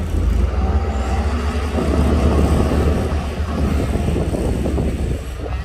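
Heavy construction machine's diesel engine running steadily with a deep hum. A rough, rattling clatter joins in from about two seconds in.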